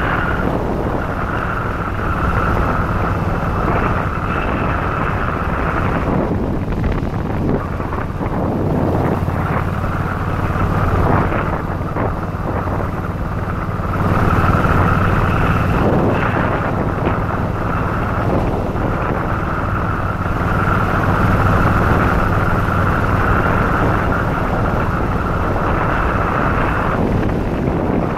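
Yamaha Virago XV1100's air-cooled V-twin engine running on the move, with wind buffeting the microphone. The wind is heaviest a few seconds in, and the engine gets a little louder about halfway through.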